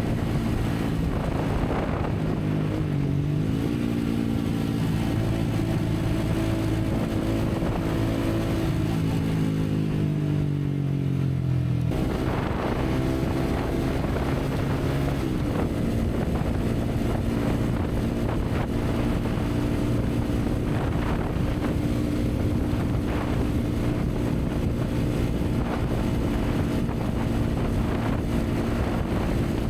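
Honda CBR150R's single-cylinder engine running under way, with wind rushing over the microphone. The engine note falls steadily for a few seconds, breaks off abruptly about twelve seconds in, then carries on at a steady pitch.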